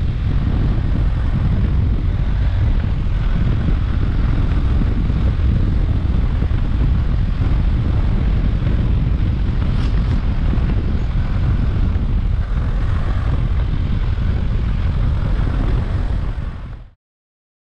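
BMW F800 GS's parallel-twin engine running at a steady cruise, mixed with wind rush on the microphone as the motorcycle rides along. The sound stops abruptly near the end.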